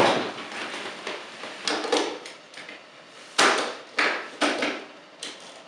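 Plastic transforming-robot action figures being handled and set down on a hard surface: a run of clacks and knocks, the sharpest about three and a half seconds in, followed by three more in quick succession.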